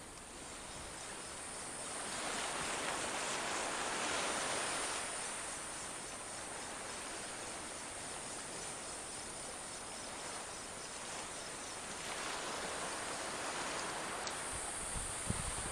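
Soft, steady outdoor hiss of wind and water along a calm shallow shore, swelling louder a couple of seconds in and again near the end.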